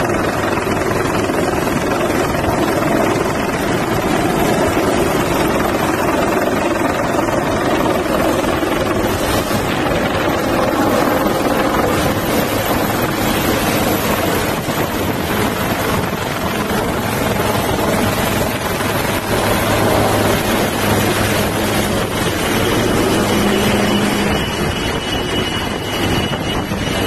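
HAL Dhruv twin-turbine helicopter hovering overhead and lifting an underslung load: loud, steady rotor and turbine noise, easing slightly near the end as it draws away.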